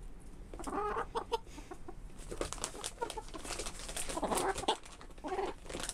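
Domestic hens clucking in several short bouts while feeding, over a run of quick sharp taps as their beaks peck food from a hand and the wooden boards.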